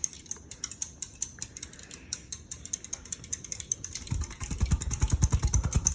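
Hampton Bay Marquesas ceiling fan running on medium, with a rapid, even ticking of about six clicks a second. From about four seconds in, low rhythmic pulses join the ticking.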